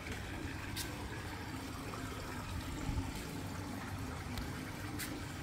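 Swimming pool water trickling steadily, with a faint hum beneath it and a couple of light clicks.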